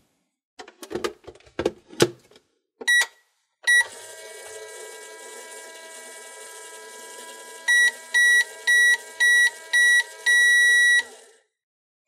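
Just Like Home toy microwave: plastic clicks as the door is shut, two button beeps, then a steady electronic running hum from its speaker for about seven seconds. The cycle ends in five short beeps and one longer one, the loudest sounds here.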